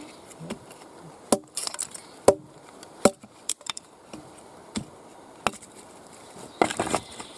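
Wood at a campfire giving a handful of sharp, separate cracks and knocks at uneven intervals, with a short flurry of them near the end.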